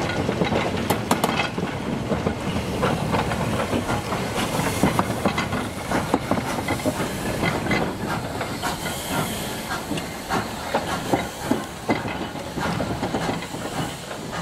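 Robert Stephenson and Hawthorns 0-4-0 saddle tank locomotive moving slowly with wagons, steam hissing from around its cylinders. Irregular clicks and clanks from the wheels and wagons on the track run through it.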